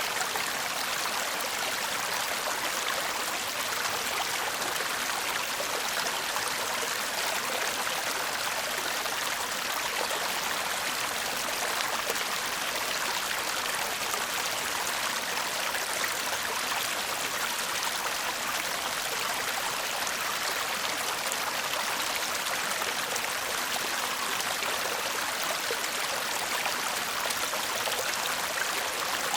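A shallow stream babbling and murmuring over stones, a steady water rush.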